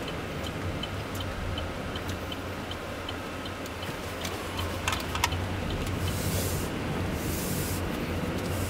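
Chevy Volt's turn-signal indicator ticking at an even pace inside the cabin, stopping about four seconds in as the left turn is made, over a low steady hum of the moving car. A couple of sharp clicks follow shortly after, then a rising hiss of road and wind noise.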